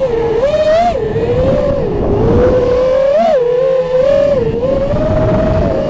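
FPV quadcopter's electric motors and propellers whining, the pitch wavering with throttle and climbing sharply about a second in and again a little past three seconds, over a low rush of wind.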